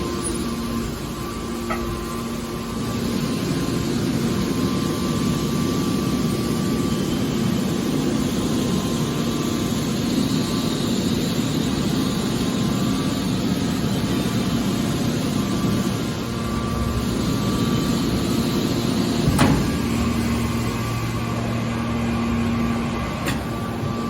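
Industrial machinery running steadily with a constant hum, and one sharp knock about three quarters of the way through.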